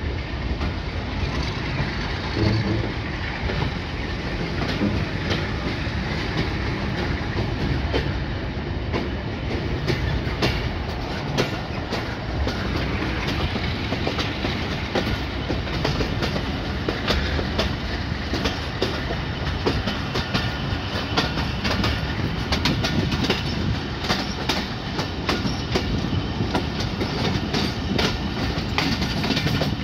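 Passenger train running, heard from the open side of a moving coach: a steady rumble of wheels on the track with rail-joint clicks. The clicks come thick and fast from about ten seconds in.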